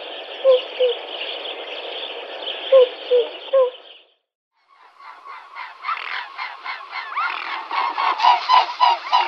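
Waterfowl honking: a few short calls over a steady hiss for about four seconds, a brief break, then a faster run of honks, about four a second, getting louder toward the end.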